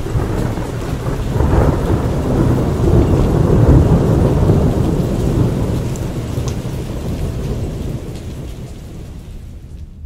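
A long rolling thunder rumble with heavily boosted bass, swelling to its loudest about three to four seconds in and slowly dying away.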